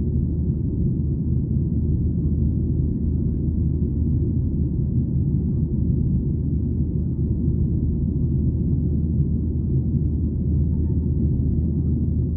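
Steady low rumble of a Boeing 737-800 in flight, heard inside the passenger cabin: the CFM56-7B engines and airflow, with no change in pitch or level.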